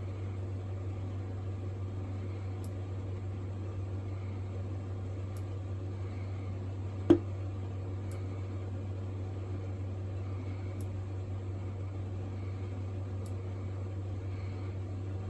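Small handheld gas torch burning with a light, steady hiss over a steady low hum, with one sharp click about halfway through.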